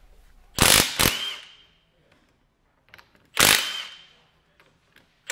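Milwaukee M18 FUEL Gen 2 half-inch mid-torque impact wrench hammering in short bursts about three seconds apart, with the last one starting at the very end. Each burst lasts about half a second, then trails off with a ringing tone as the wrench breaks a lug nut loose and spins it.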